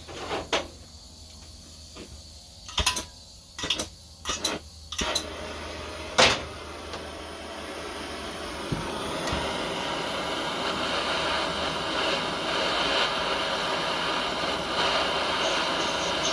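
A few sharp clicks and knocks, then a small handheld torch burning with a steady hiss that builds up and holds, heating an old spring-steel throttle return spring so it can be bent.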